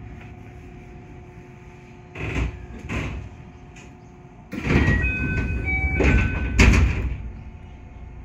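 221 series EMU's sliding passenger doors closing at a station stop. Several short electronic tones sound while the doors move, and they end in a loud thump as the doors shut.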